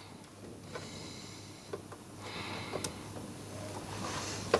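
Faint rustling and a few small clicks of cables and connectors being handled inside a PC case, over a low steady hum.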